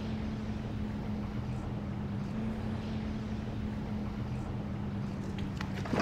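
Steady low hum of a motor vehicle's engine in nearby street traffic over a low rumble, with a few faint clicks near the end.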